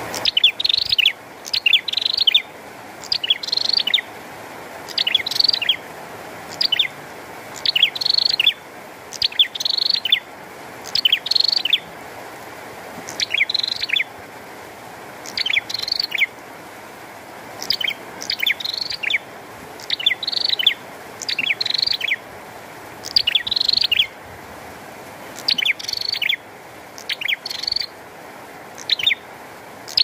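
A caged prenjak singing: loud, sharp repeated chirping phrases, one every second or two, over a steady hiss of rain.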